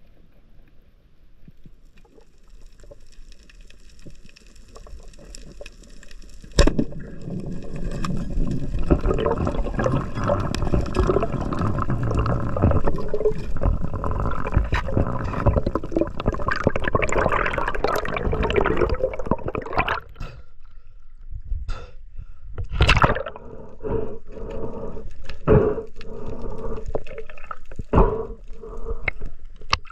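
Water sloshing and gurgling: fairly quiet at first, then a continuous loud rush of water from about six seconds in to about twenty, followed by a series of separate short splashes.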